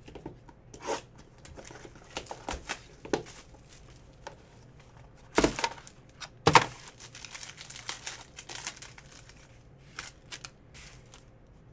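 Plastic wrapper of a Panini Court Kings basketball card pack crinkling as it is torn open by hand, with cards rustling. A run of short, sharp crackles, the two loudest a little past halfway through.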